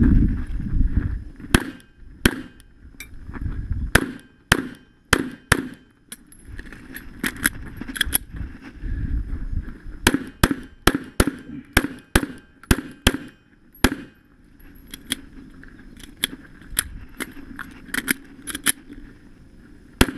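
Pistol shots fired during a timed stage run: dozens of sharp reports, mostly in quick pairs and short strings, separated by pauses of a second or two, with a low rumble in some of the gaps.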